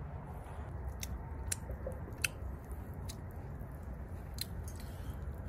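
A man chewing a mouthful of chicken sandwich, with a few sharp clicks over a steady low background rumble.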